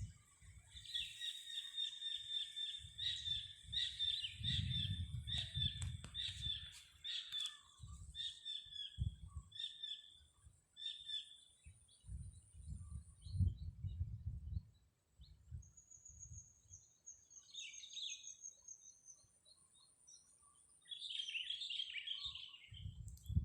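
Small birds chirping, a quick run of short repeated chirps for the first ten seconds or so, then a thin high trill and more scattered chirps later. Bursts of low rumble come and go underneath.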